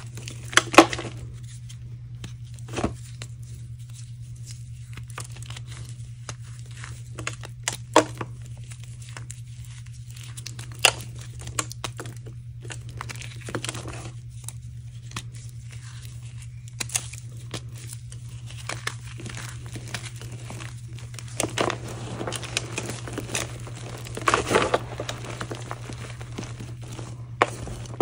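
Hands crushing and crumbling dried-out reformed chalk in a foil tray: scattered crisp crunches and crackles, with a few louder clusters of crunching. The chalk has dried hard, so it breaks with a crunch rather than a soft puff.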